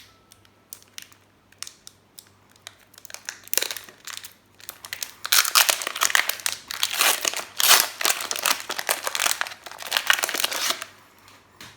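A trading-card booster pack's foil wrapper crinkling as it is handled, preceded by a few light clicks. The crinkling starts about three and a half seconds in and runs for about seven seconds before stopping.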